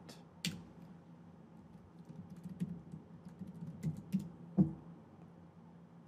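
Typing on a computer keyboard: a run of irregular key clicks, with a sharper single click about half a second in and a louder one near the end.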